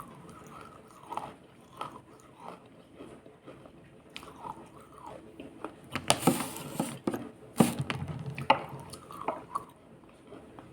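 Wet crunching and small clicks with short drip-like plinks, and two louder crunches about six seconds and seven and a half seconds in.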